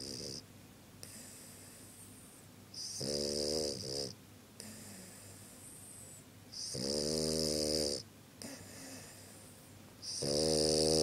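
A sleeping dog snoring: three long snores about three and a half seconds apart, each a buzzing tone with a hiss over it.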